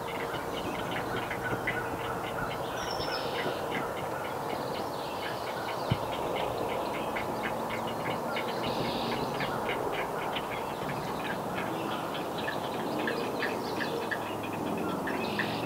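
Great blue heron nestlings begging at the nest: a rapid, steady clattering chatter of short clicking calls, about five a second. A single sharp knock about six seconds in.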